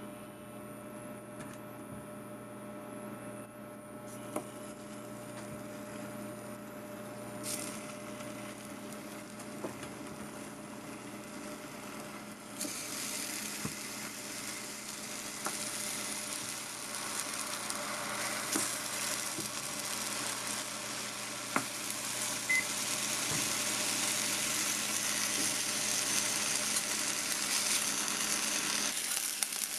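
Hot oil in a stainless-steel pan starts to sizzle about halfway through as round vegetable slices go in, and the sizzle grows louder toward the end. A few light clicks of metal tongs against the pan are heard over a steady low hum.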